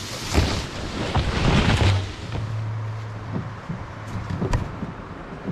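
Leafy shrub branches swishing and scraping along a canoe and across the microphone as the canoe is pulled through dense brush. The rustling is loudest in the first two seconds, then eases, with a few sharp knocks later.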